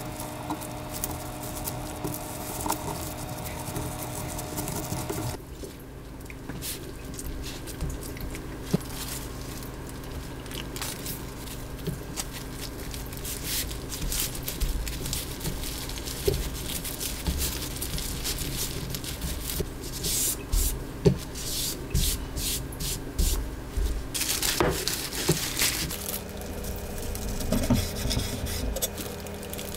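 Small handling sounds: scattered clicks, taps and brief scraping and rubbing, over a faint steady hum, across several short cuts.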